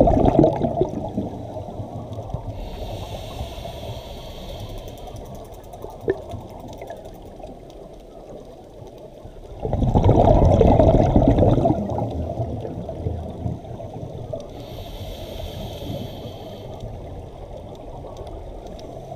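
Scuba diver breathing through a regulator underwater: a hiss of inhalation about three seconds in and again about fifteen seconds in, and a loud rush of exhaled bubbles about ten seconds in, with the tail of another bubble burst at the start.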